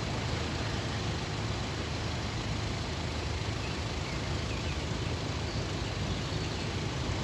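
Steady low traffic noise: cars idling in a stopped queue, with an even low hum.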